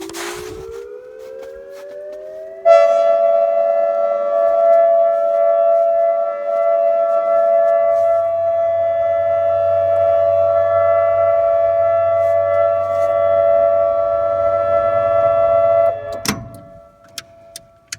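Rotating electronic outdoor warning siren sounding, powered by batteries and a circuit board. Its tone glides upward for about the first three seconds, then jumps to a loud, steady alert tone that cuts off a couple of seconds before the end.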